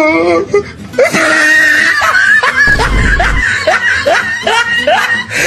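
Loud laughter: a quick run of short 'ha' bursts, about three a second, starting about a second in.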